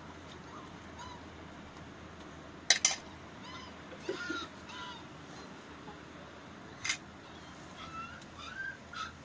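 Short bird calls over a steady background hiss, with two sharp knocks close together about three seconds in and another about seven seconds in.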